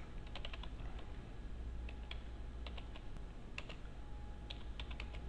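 Computer keyboard being typed on: short irregular runs of key clicks with pauses between them, over a low steady hum.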